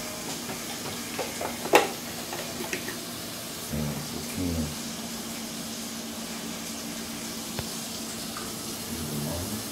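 A sharp click, like a plastic bottle cap being opened, just under two seconds in, then a dark drink poured from a plastic bottle into a wine glass, over a steady hiss.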